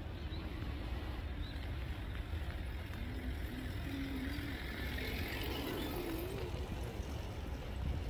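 Steady low background rumble, with a faint wavering hum in the middle.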